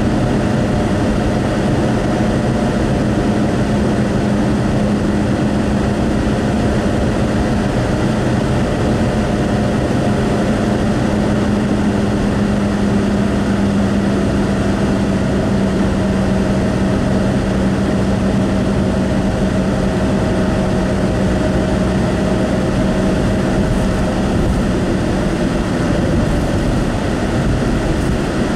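Inside a moving car's cabin: steady road and tyre noise under a low, even engine hum.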